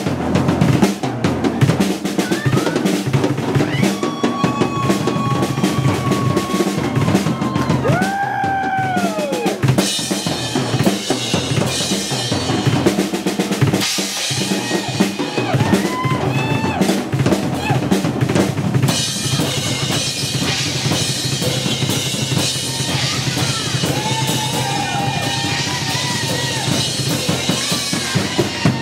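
Live rock drum solo on a full drum kit: rapid, unbroken bass drum, snare and tom hits, including rolls and rimshots. The high cymbal wash thickens about ten seconds in and again near twenty seconds.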